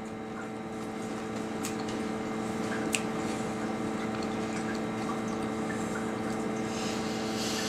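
A steady mechanical hum, slowly growing a little louder, with a couple of faint clicks.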